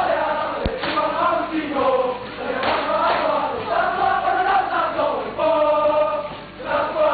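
Group of male voices singing and chanting a Samoan song together for a siva dance, with a single sharp knock less than a second in and a brief break in the singing shortly before the end.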